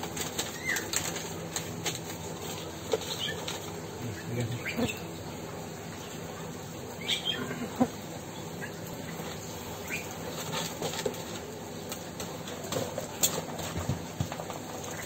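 Rustling and handling noises as paper and a plastic bag are handled, with scattered light clicks and a sharper knock about eight seconds in.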